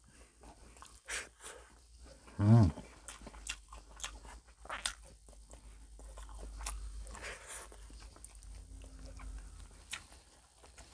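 Close-up eating sounds: crunching and chewing with scattered clicks, and one short, low vocal sound about two and a half seconds in that is the loudest thing heard.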